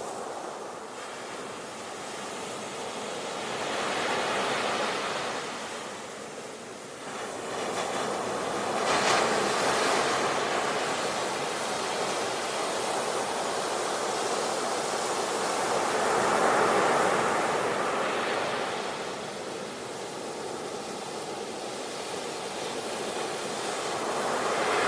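Ocean waves breaking on a beach, the surf swelling and fading in slow surges every several seconds.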